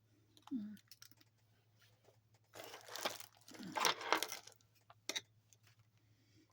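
Two scratchy rustling bursts, about a second each, with a shorter one near the start and a tick near the end, from handling a latch hook rug canvas, yarn and paper pattern chart.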